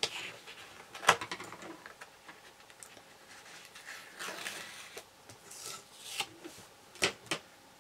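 Double-sided tape being peeled back off the edge of a white card, paper rustling with two drawn-out tearing hisses in the middle, and a few sharp ticks of the card and fingers, one about a second in and two near the end.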